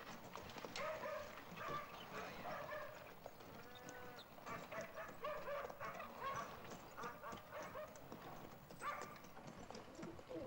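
A small dog barking repeatedly, in short barks at irregular intervals, with one longer drawn-out call about four seconds in.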